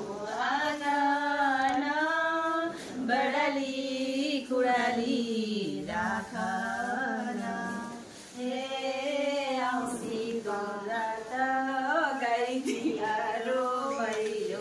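Several women singing together without accompaniment: long, drawn-out lines of a Nepali Bhailo (Bhailini) Tihar song, with short breaths between phrases.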